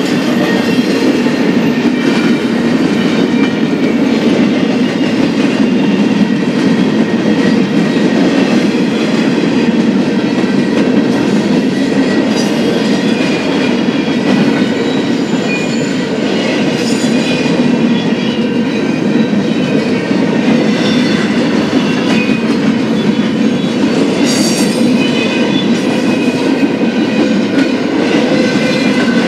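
BNSF freight train rolling past at steady speed, its cars' wheels running on the rails in a loud, unbroken rumble.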